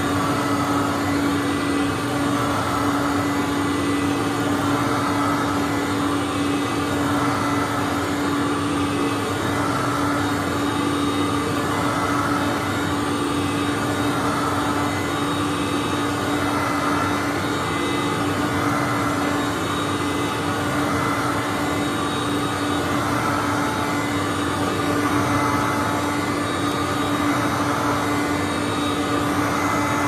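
2004 Hoover Conquest C1800 upright vacuum cleaner running steadily while pushed back and forth over carpet: a constant motor hum under a rush of air that swells and eases with each push-and-pull stroke.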